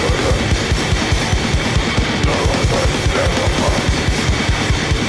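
Loud, fast rock backing music driven by a drum kit with rapid, evenly spaced kick-drum beats.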